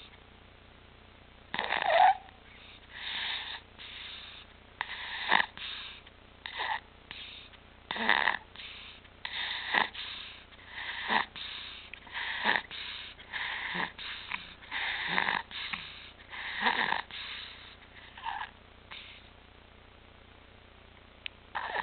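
An infant breathing noisily with stridor: a harsh, rasping sound on breath after breath, roughly one a second, stopping near the end. Stridor like this is the sign of a narrowed upper airway.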